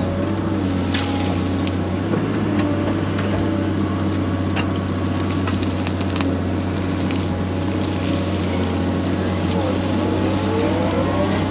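Excavator's diesel engine running steadily under work, with scattered clicks and cracks over it.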